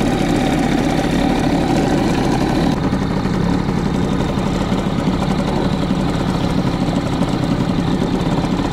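Outboard motor running steadily, pushing an inflatable boat at trolling speed: an even engine hum with no change in pace.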